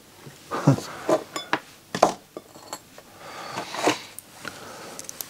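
Handling noise as a flat ribbon cable and a small plastic connector are fitted back onto a CD player's main circuit board: a string of sharp clicks and knocks with some rustling between them, the loudest a little under a second in and at about two seconds.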